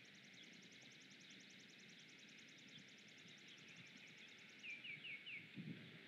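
Faint birdsong: a rapid, even ticking trill of about ten notes a second that stops near the end, followed by four quick descending chirps. Low buffeting rumbles come in during the last half second.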